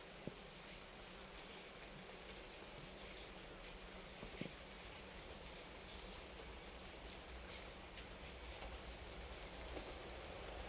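Faint outdoor background with a steady high insect drone, and a short run of quick, high chirps about four a second near the end.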